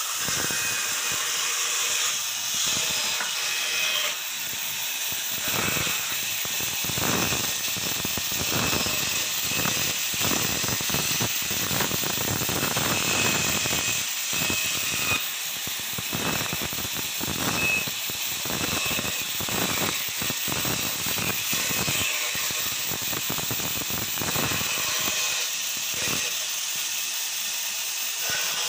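Band saw running and cutting through wood blocks. The blade bites in many short, irregular cuts over the machine's steady high-pitched running noise.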